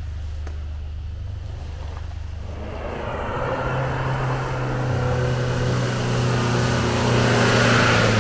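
Off-road 4x4's engine running low and steady, then picking up from about three seconds in and growing steadily louder as the vehicle gets under way, with a rising rush of noise.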